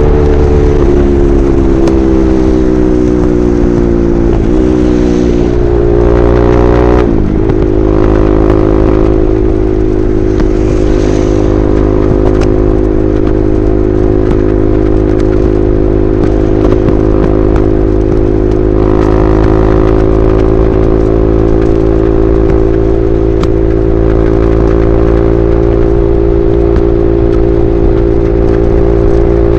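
KTM RC 390's single-cylinder engine through an SC Project replica slip-on exhaust, on the move. Revs fall off, jump up about four and a half seconds in, fall again, then settle at about seven seconds into a steady cruising note.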